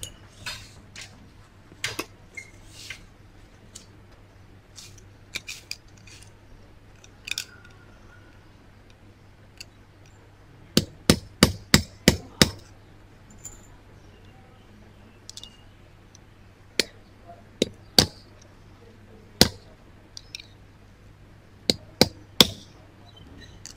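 Hammer striking a screwdriver used as a punch on the broken metal handle bracket of a sublimation heat press, to knock out its hook. There are lighter clicks at first, then a quick run of about six sharp metallic strikes midway, a few single strikes, and three more near the end.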